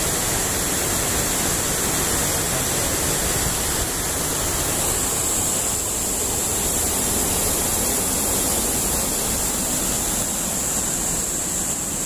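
Water rushing steadily over a small irrigation weir, an even wash of sound.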